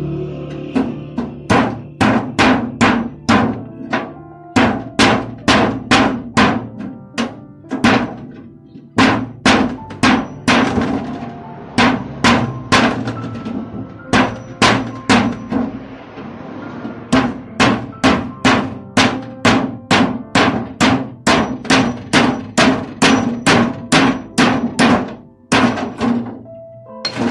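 Claw hammer striking a blade driven through the sheet-metal top of an oil tin to cut it open: a steady run of sharp metallic blows, about two to three a second with a few short pauses, the tin ringing between strikes.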